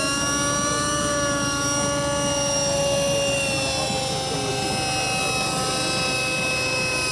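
Radio-controlled model helicopter in flight, its motor and rotors making a steady high whine over a low rotor buzz; the pitch sags a little midway, then holds.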